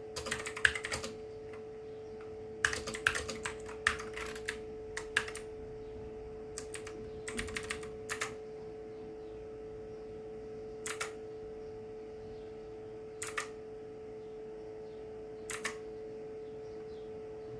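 Clicky blue-switch mechanical keyboard being typed on in short bursts of keystrokes, then a few spaced single presses near the end. A steady low hum runs underneath.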